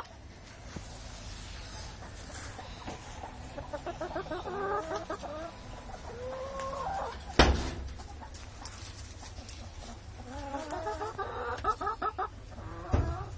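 Hens clucking in runs of short, quick clucks. A single sharp knock about seven seconds in.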